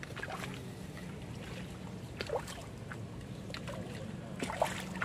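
Faint, scattered water splashes from a hooked wild tilapia thrashing at the surface of a pond as it is played in, with one sharper splash near the end.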